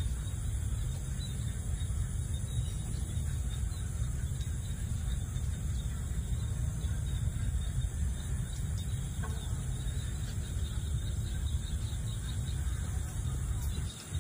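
Outdoor farm ambience: a steady low rumble of wind on the microphone under a constant high-pitched insect drone, with a few faint animal calls. The rumble drops away briefly near the end.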